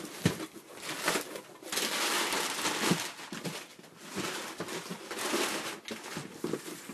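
Cardboard shipping box being opened by hand: flaps flexing and knocking, and crumpled brown packing paper rustling and crinkling as hands dig through it.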